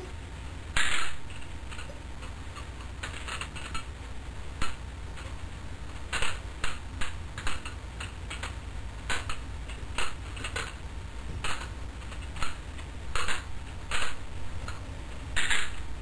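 Two balisong (butterfly) knives being flipped and caught, their metal handles and blades clicking and clacking against each other in irregular runs, with several louder clusters of clacks.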